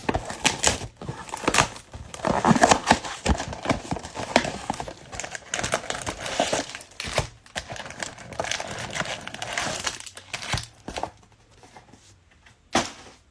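Plastic shrink wrap being torn and crumpled off a sealed football trading-card mega box: a dense, irregular crackling that thins out after about ten seconds, with one sharp crinkle near the end.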